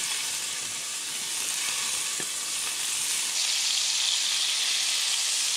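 Scallops searing in a hot frying pan: a steady sizzle as they are laid in with tongs, growing louder about three seconds in.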